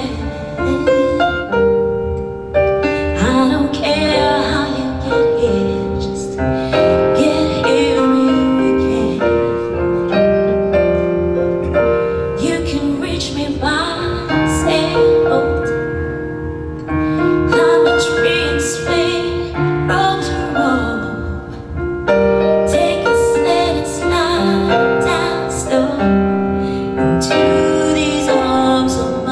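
A singer performing a slow song with piano accompaniment, holding long notes.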